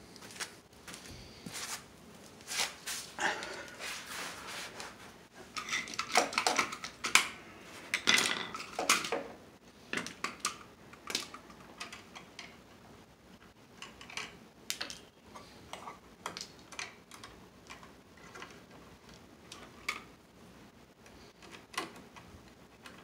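Irregular metallic clicks and clinks of hand tools and electrical wires being handled at an electrical box, with a denser, louder run of clinks about six to nine seconds in.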